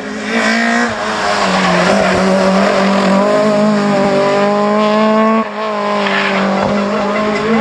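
Rally car engine held at high revs as the car drives away into a bend, dropping back briefly about two thirds of the way through.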